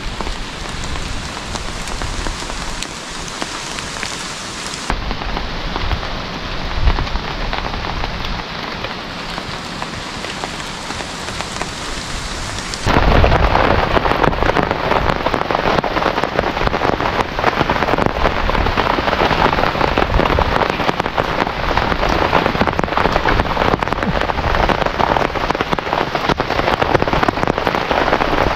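Heavy rain falling steadily. It becomes much louder and denser about halfway through.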